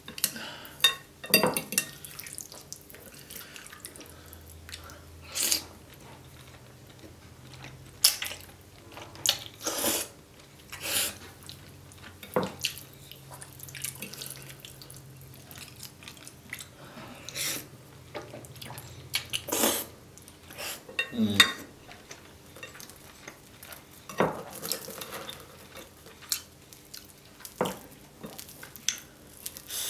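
Close-up eating sounds of creamy fettuccine: wet slurping and chewing, with a fork and chopsticks clinking and scraping on a ceramic plate in scattered sharp clicks.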